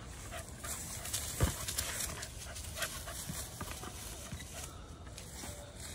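A small dog scuffling through long grass with a basketball: rustling with scattered soft knocks and thumps, one louder thump about a second and a half in.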